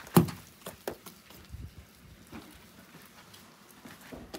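Dough rounds being slapped onto the clay inner wall of a large tandoor oven: one sharp slap about a quarter second in, then a few softer knocks and taps.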